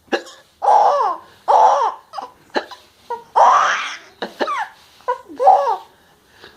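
A person laughing while hiccuping: about four bursts of laughter, each falling in pitch, broken by short, sharp hiccups.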